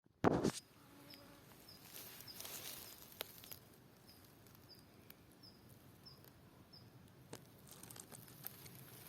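Quiet forest ambience: a small bird repeats a short high chirp about twice a second for several seconds, over faint crackling and rustling. A brief loud noise comes just after the start.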